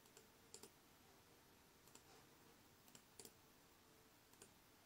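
Near silence with a few faint, separate clicks spread over several seconds, from working a laptop: selecting text and right-clicking to open a menu.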